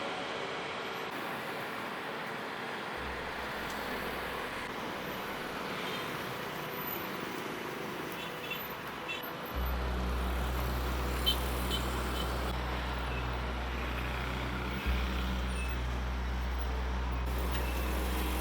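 Road traffic noise: a steady hiss of passing vehicles, joined about ten seconds in by a heavy low rumble.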